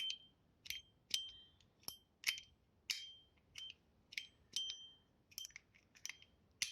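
Titanium Musketeer fidget's spring-and-ball slider mechanism being snapped back and forth, giving sharp metallic clicks about twice a second, many with a short bright ring like a Zippo lighter lid.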